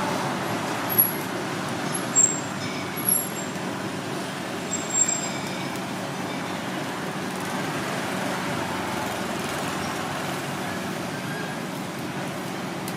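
Steady street traffic noise, with four short, high clinks between about one and five seconds in.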